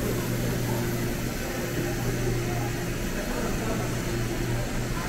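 Steady ambience of a busy train station interior: a constant low machinery hum under an even wash of crowd and room noise, with no distinct events.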